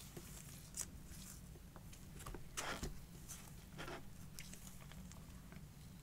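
Faint handling sounds of packaging being unboxed: scattered light taps and clicks with a few short rustles, the longest about two and a half seconds in.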